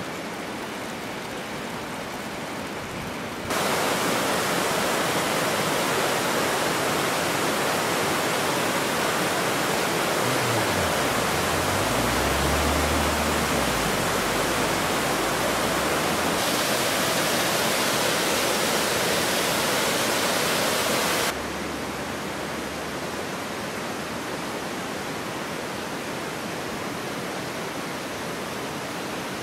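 Rushing water of a stream cascading over rocks: a steady rush that gets abruptly louder a few seconds in and drops back to a lower level about two-thirds of the way through.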